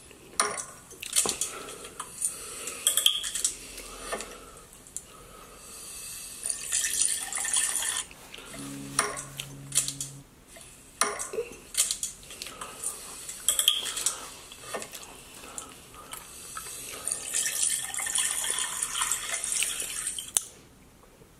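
Close-miked eating sounds: chewing with wet mouth noises, smacks and sharp clicks in uneven clusters, and a short closed-mouth hum about nine seconds in.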